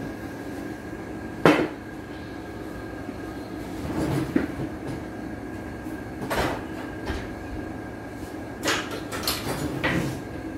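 Kitchen handling sounds over a steady hum: a sharp knock about a second and a half in, then scattered clatters and knocks, busiest near the end, as a wooden rolling pin is set down on a plastic-wrapped glass table and a knife is fetched from the kitchen counter.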